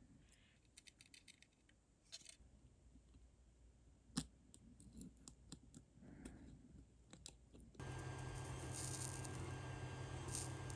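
Faint clicks and taps of small plastic parts and connectors being handled, with one sharper tick about four seconds in. Near the end a steady hum starts suddenly and holds.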